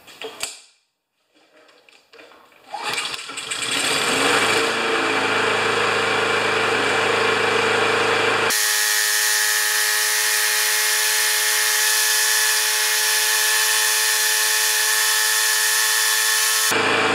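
Honda engine on a LawnBoy push mower starting on the choke about three seconds in and then running steadily. About halfway through, the sound abruptly changes to a higher, thinner tone.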